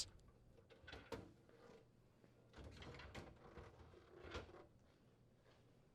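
Faint handling of plastic refrigerator crisper drawers as they are slid out, with a light knock about a second in and a soft scraping slide later, ending in another small knock.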